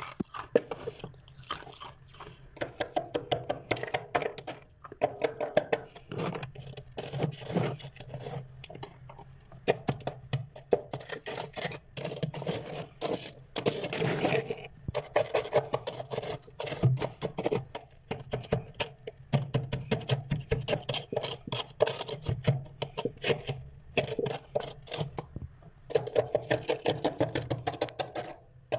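Close-up crunching of freezer frost being bitten and chewed: rapid runs of crisp crunches, broken by short pauses every few seconds.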